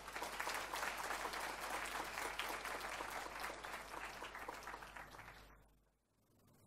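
Audience applauding: dense clapping that dies away about five and a half seconds in.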